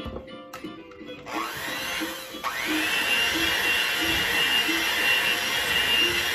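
Electric hand mixer starting up about a second in, its motor whine rising, dipping briefly, then rising again and running steadily at speed as its beaters work through cake batter in a bowl. Background music plays underneath.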